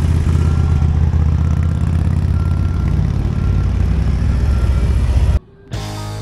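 A motorcycle engine running close by with a loud, steady low rumble, cutting off suddenly about five seconds in.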